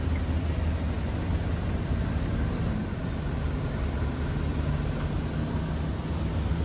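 Isuzu city bus's diesel engine running as the bus moves off slowly past close by: a steady low drone.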